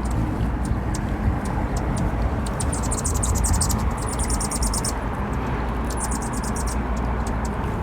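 Hummingbirds chattering: three bursts of rapid, high-pitched twittering about a second long, with scattered sharp chip notes between. Under them runs a steady low rumble.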